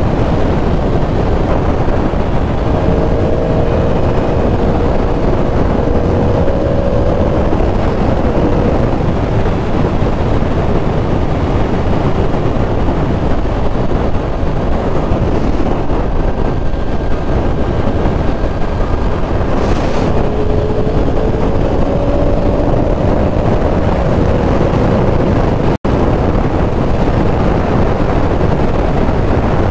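Heavy wind rush on the microphone from riding a 2023 Yamaha R1 sportbike at highway speed, with the engine and road noise running under it and a faint engine tone coming and going twice. The sound cuts out for an instant near the end.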